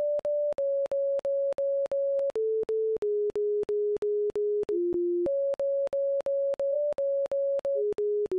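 Electronic pure tone beeping about four times a second, each beep starting with a click, stepping between a few low-to-middle notes: it steps down twice in the first half, jumps back up about halfway through, then drops again near the end. These are colours turned into sound, each colour's light frequency played as a note.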